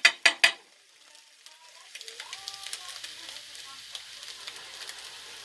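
Eggs frying in a pan: a quick run of sharp knocks at the start, then a steady sizzle with fine crackling from about a second and a half in.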